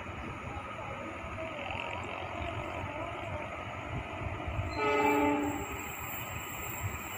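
Train horn sounds one short blast about five seconds in, over a steady low rumble.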